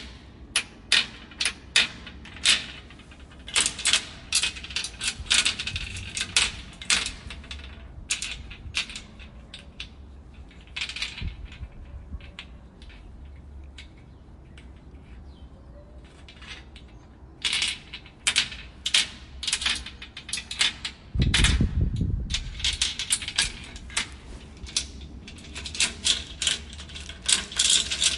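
Metal chain rattling and clinking with padlocks clicking and knocking, in quick irregular bursts that thin out in the middle. About three-quarters of the way through, one heavier thud is the loudest moment.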